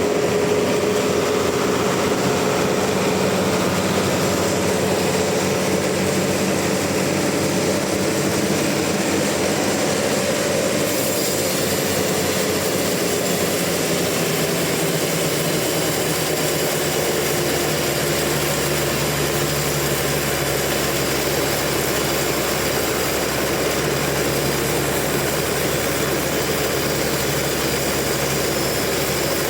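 Sawmill machinery running steadily, a loud mechanical drone of the motor and saw while a large trembesi (rain tree) log is being sawn. The sound shifts about 11 seconds in, and a deeper hum joins around 17 seconds.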